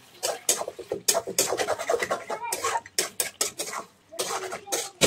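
Metal spatula scraping and clacking against a steel kadai as chicken curry is stirred, in quick repeated strokes, with a short pause near the end.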